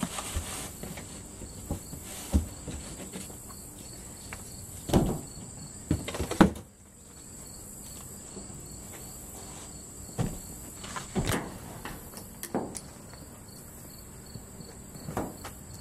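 A new molded car carpet being pulled out of its cardboard box and unfolded: scattered rustles, scrapes and knocks of cardboard and carpet, loudest about five and six and a half seconds in. Insects chirp steadily and faintly in the background.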